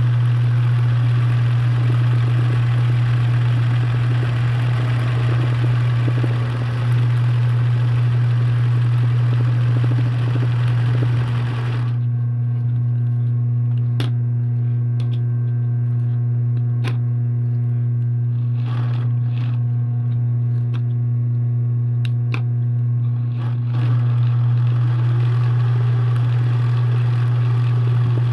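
Embroidery machine stitching with a steady whirring hum. For about twelve seconds in the middle the stitching noise drops away, leaving the hum and a few sharp clicks, before it starts again.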